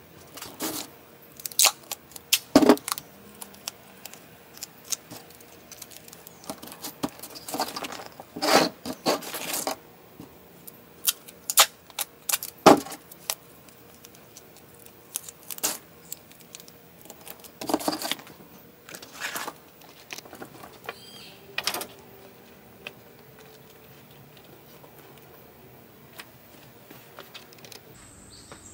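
Aluminium foil packets crinkling and rustling as they are handled and pressed onto a paper target, in irregular sharp crackles that thin out over the last several seconds.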